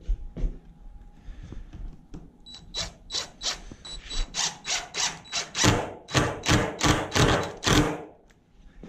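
One-handed trigger bar clamp being pumped tight: a run of short ratcheting clicks, about three a second, starting a couple of seconds in and growing louder toward the end.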